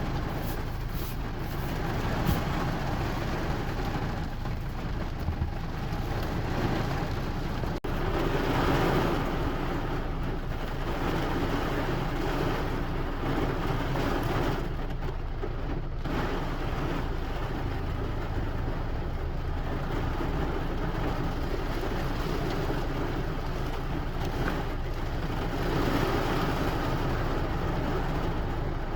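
Steady rainfall, a dense even hiss with a strong deep low end underneath. It swells louder for a couple of seconds about a third of the way in and again near the end.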